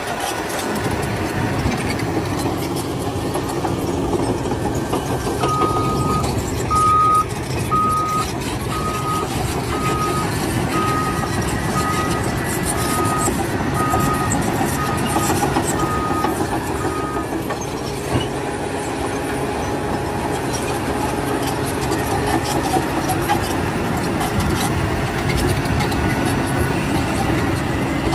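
A heavy machine's engine running steadily. A single-tone backup alarm beeps a little faster than once a second, starting about five seconds in and stopping about twelve seconds later.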